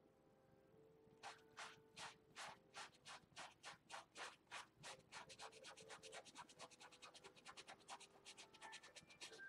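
Fine paintbrush scratching across canvas in short repeated strokes, starting about a second in and growing quicker about halfway through.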